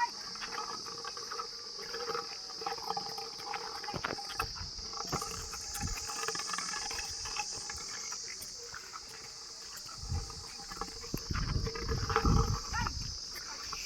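Village water buffaloes making low animal sounds, with a steady high insect drone behind. Louder low rumbles come in near the end.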